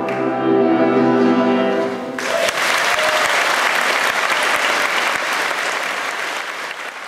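A mixed choir holds its final chord, which breaks off about two seconds in; the audience then bursts into applause, which fades near the end.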